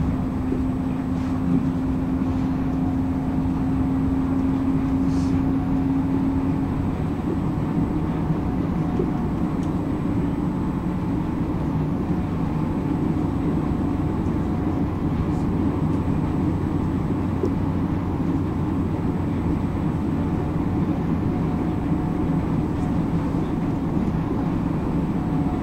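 Electric commuter train running at speed, heard from inside the carriage as a steady rumble and road-like rail noise. A steady hum from the running gear stops about seven seconds in.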